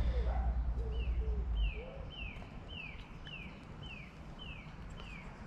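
A bird calling a short falling note over and over, about one and a half times a second, starting about a second in. Wind rumbles on the microphone for the first couple of seconds.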